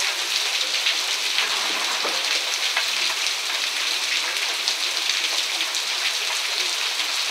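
Heavy rain falling steadily on a wet street: a dense, even hiss with many close drops ticking through it.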